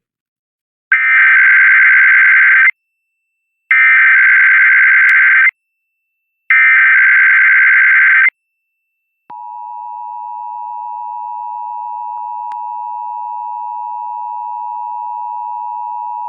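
Emergency Alert System monthly test broadcast over radio: three identical bursts of rapid warbling SAME header data tones, each nearly two seconds long and about a second apart, then after a short gap the steady two-tone EAS attention signal starting about nine seconds in. The header bursts and attention tone mark the start of an EAS alert, here a required monthly test.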